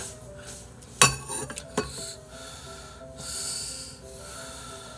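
Slurping of beef ramen noodles: a sharp loud slurp about a second in, and a longer hissing slurp a little past the middle, over soft background music with a simple melody.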